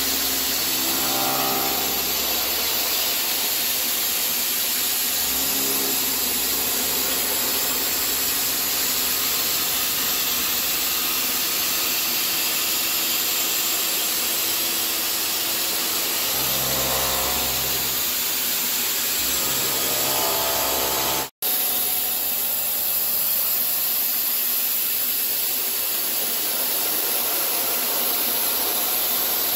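CNC machining centre milling a steel workpiece with an indexable shoulder mill: a loud, steady cutting hiss over the spindle's hum, which swells now and then. The sound drops out for an instant about 21 seconds in.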